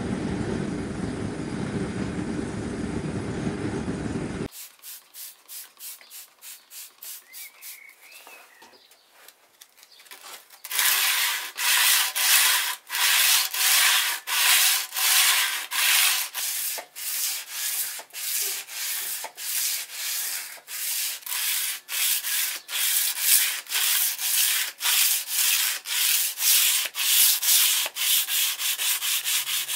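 For the first four seconds or so, the steady roar of a furnace heating a steel sabre blade for tempering. After an abrupt cut, a steel sword blade is hand-sanded with abrasive, in back-and-forth rubbing strokes, faint at first and loud from about ten seconds in, at roughly one to two strokes a second.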